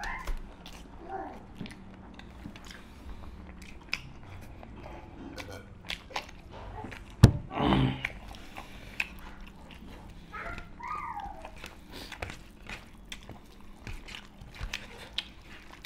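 Two people eating chicken curry and rice by hand, chewing and smacking, with many small scattered clicks from fingers and food against steel plates. A sharp knock comes about seven seconds in.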